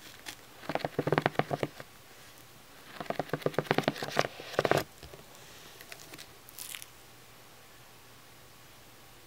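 Fingernails and fingertips tapping rapidly on a glossy paperback book cover, in two quick runs of clicks about a second and two seconds long.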